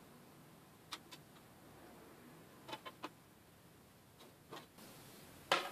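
Scattered light clicks and taps of a pencil and steel rule on an aluminium panel during marking out, with a sharp, much louder knock near the end.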